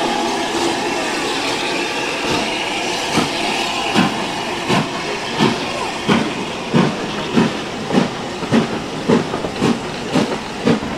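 Steam-hauled train behind Southern Railway S15-class 4-6-0 No. 847 pulling out of the station: a hiss of steam at first, then a regular beat that starts a few seconds in and quickens as the train gathers speed.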